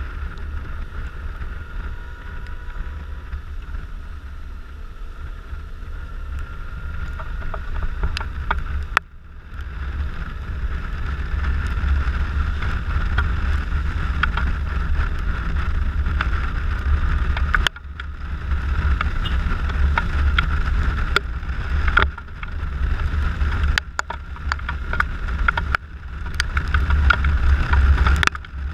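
Wind rushing over a camera microphone on a Suzuki Burgman 650 maxi-scooter riding at speed, over the low rumble of the scooter and its tyres hissing on a wet road. The noise drops out suddenly for a moment several times and grows louder near the end.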